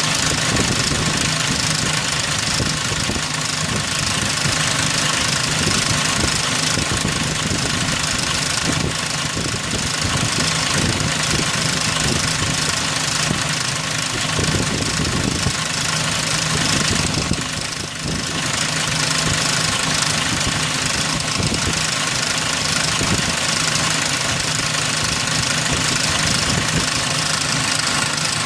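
2003 Ford Ranger's 4.0-litre V6 running steadily at idle, with the knocking rattle that the owner puts down to the timing chain.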